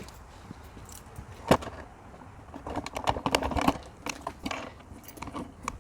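Handling noise: scattered sharp clicks and a jangling clatter, with one loud click about a second and a half in and a busy run of rattling in the middle, as the camera is moved in close to the engine.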